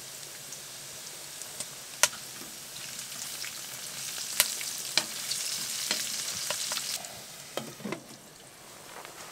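Vegetables sizzling in a frying pan on a wood stove as they are stirred with a spoon, with sharp clicks of the spoon against the pan. The sizzle grows louder in the middle, and a lid is set on the pan with a few clacks near the end.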